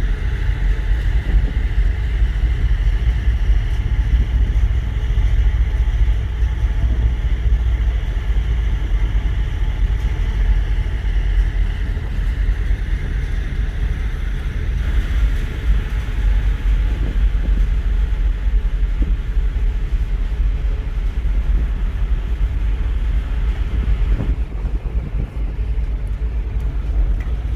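Steady low rumble of the high-speed ferry Santorini Palace's engines, heard from its open deck while it manoeuvres into harbour, mixed with wind buffeting the microphone.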